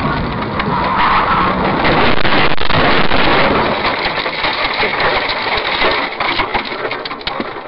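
Car ploughing off the road through snow and roadside brush: a loud, rushing noise of snow and branches scraping along the body and windshield, with a run of sharp knocks and cracks in the last couple of seconds.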